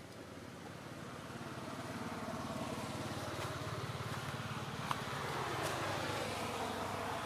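A motor vehicle approaching and passing by: its engine grows louder, and its pitch drops as it goes past near the end, with a few short sharp clicks along the way.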